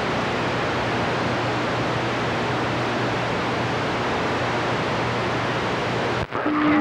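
CB radio receiver's speaker hissing with steady band static while no station is coming through, a faint low hum under it. Near the end the hiss cuts off sharply as an incoming station's carrier quiets it, and a steady low tone begins.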